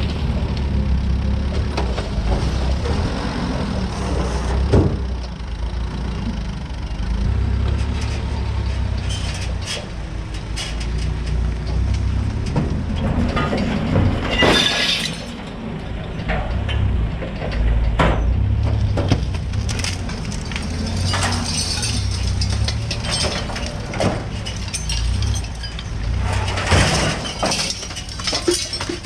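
Scrap sheet metal clanking and crashing again and again over a steadily running engine, as the metal is dumped and moved.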